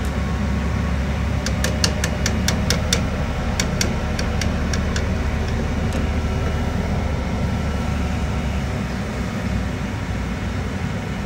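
Steady low machinery hum from the waterjet cooling installation. Two quick runs of sharp ticks come between about one and a half and five seconds in.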